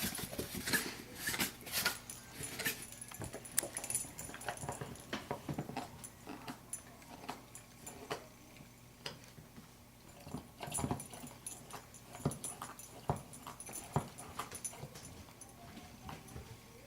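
A large English Mastiff–Great Dane cross chewing: a run of irregular wet smacks and crunches, busiest in the first few seconds and again about two-thirds of the way through.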